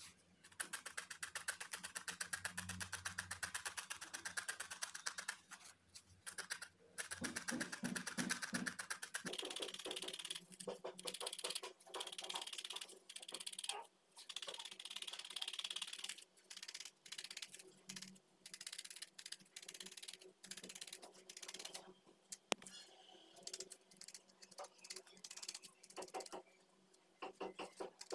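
A felting needle stabbing wool into a foam pad: fast, repeated crisp pokes in runs with short pauses, as a small wool wing is felted.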